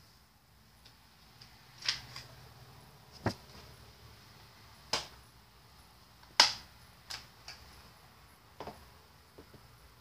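About six sharp clicks and taps at irregular intervals, the loudest a little past halfway, over a faint steady hiss.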